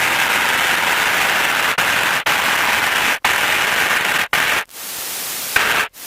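Loud, steady hiss of cockpit noise picked up through an open headset intercom microphone, cutting out abruptly several times for a moment.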